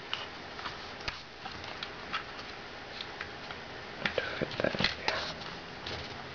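Light clicks, taps and scrapes of small plastic and metal parts as a USB hub and dongle are pushed and fitted inside a Nao robot's opened head, with a denser flurry of clicks around four to five seconds in.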